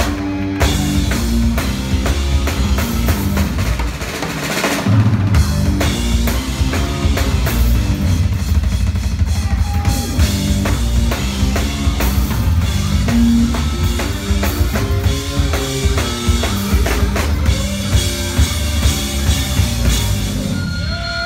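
Live rock band playing loud, the drum kit to the fore with steady bass-drum and snare hits over electric guitar and bass notes. The low end comes in harder about five seconds in.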